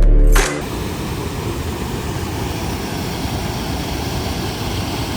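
Toce Waterfall's large cascade rushing, a steady, even roar of falling water, just after background music cuts off about half a second in.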